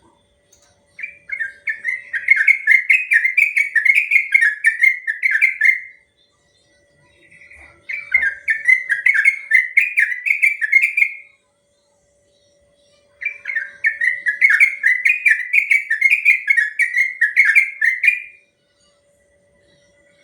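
Yellow-vented bulbul (trucukan) singing its long rolling song: three phrases of several seconds each, a quick string of bubbling whistled notes, with short pauses between. A faint steady hum runs underneath.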